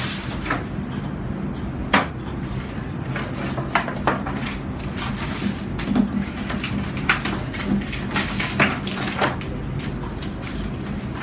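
A large paper sheet being handled and pressed flat against a whiteboard: scattered paper rustles and sharp taps and crackles, over a steady low hum.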